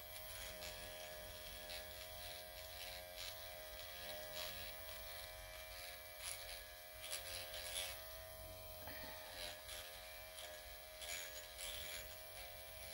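Dr. Pen electric microneedling pen buzzing steadily as its needle cartridge is worked over the skin, with faint short ticks now and then.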